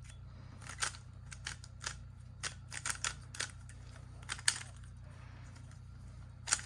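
A Rubik's cube being turned by hand: an irregular run of short plastic clicks, a few each second, with the loudest clicks about four and a half seconds in and again near the end.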